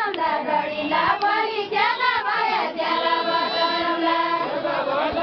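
A group of voices singing a Deuda folk song together, the melody bending up and down, with one long held note about three seconds in.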